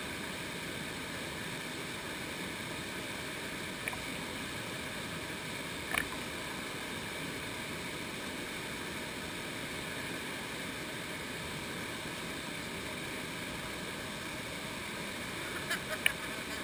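Fast, shallow stream rushing over rocks close to the microphone: a steady hiss of white water. A few brief knocks break through, one more marked about six seconds in and a small cluster near the end.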